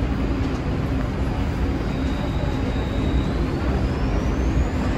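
Subway train running with a steady low rumble, over which a thin high whine holds steady and then climbs in pitch from about three seconds in, as the train picks up speed.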